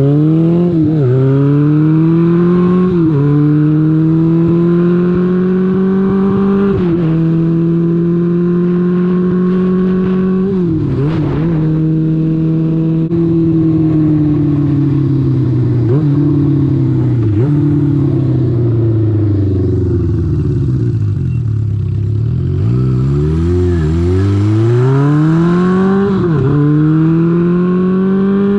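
1978 Honda CB550's inline-four engine under way, rising in pitch through several gear changes, each marked by a sudden drop. Then the revs fall away slowly for several seconds before it accelerates again near the end.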